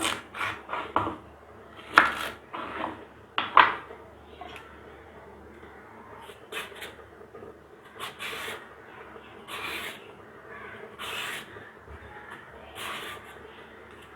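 Skin being shaved off a raw plantain with a blade: short scraping strokes, quick and louder during the first few seconds, then spaced about a second or so apart.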